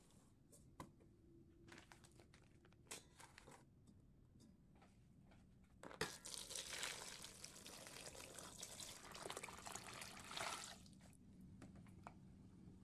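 Water poured in a stream into a rice cooker's metal inner pot, splashing onto a vacuum-sealed plastic bag of chicken breast and a cloth, starting suddenly about six seconds in and lasting about five seconds. Before it, faint rustling and clicks as the cloth is tucked into the pot.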